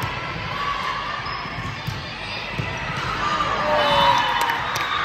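Volleyballs thudding on a hardwood gym floor amid the general din of a volleyball gym, with players and spectators shouting, loudest about four seconds in.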